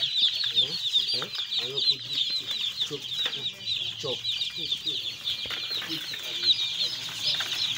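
Dozens of day-old chicks peeping together in their cardboard shipping box: a dense, continuous chorus of short, high chirps overlapping without a break.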